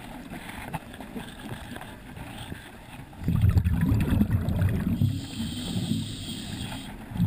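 A diver breathing underwater. About three seconds in, a loud rumble of exhaled bubbles lasts about two seconds, followed by a softer hiss, and another exhalation rumble starts at the very end.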